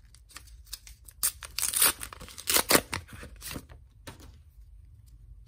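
An AFL TeamCoach 2023 trading-card pack wrapper being torn open by hand. It makes a run of sharp rips and crinkles, loudest about two seconds in, then goes quieter as the cards are drawn out.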